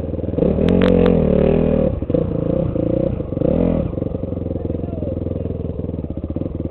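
Dirt bike engine under way on a trail, revved hard in two bursts with the throttle eased between them, then running lower and steadier. A few sharp clicks about a second in.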